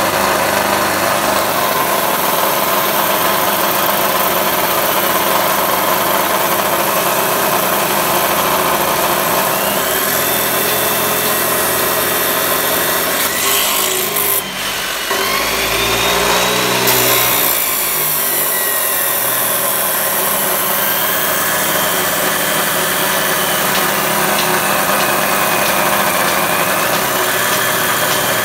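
Abrasive chop saw with a 14-inch metal-cutting wheel grinding through a metal bar, a loud, steady hiss and grind. About halfway through the cutting stops briefly while the wheel spins free and the pitch shifts, then the wheel bites in again and the grinding resumes.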